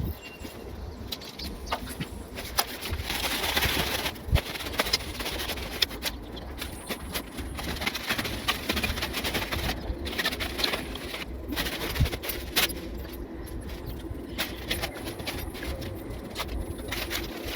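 Birds calling, with scattered clicks and knocks and a stretch of rustling about three to four seconds in.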